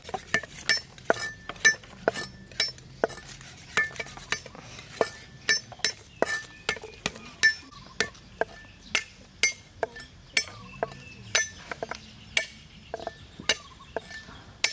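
Cleaver and kitchen knife chopping garlic and carrots on wooden chopping blocks: irregular sharp knocks, one to three a second, many with a short metallic ring from the blade.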